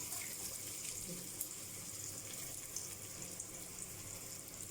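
Small onions (shallots) and garlic sizzling in oil in a kadai as they roast toward golden brown: a faint, steady hiss with a few tiny pops.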